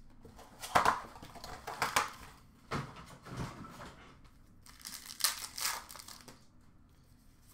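Plastic wrapper of a hockey card pack crinkling and tearing as it is ripped open, in several short rustles with quiet gaps between.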